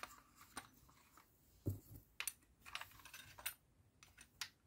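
Faint scattered clicks and light knocks of a plastic wing-mirror fold-motor housing being handled while a steel washer is fitted onto a threaded rod, with one duller knock a little under two seconds in.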